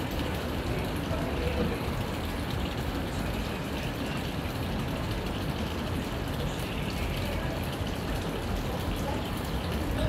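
Steady rushing, water-like noise with no distinct events.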